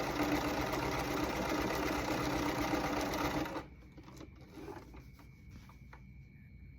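Brother LS2000 sewing machine running steadily, stitching a test seam with a twin needle, then stopping abruptly about three and a half seconds in. A few faint clicks follow.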